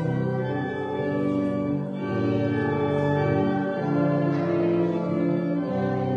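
Organ playing slow, sustained chords that change about once a second.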